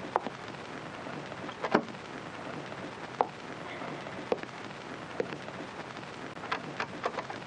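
Steady hiss and crackle of an old film soundtrack, with a few scattered sharp clicks and knocks, the strongest about two seconds in and several more near the end.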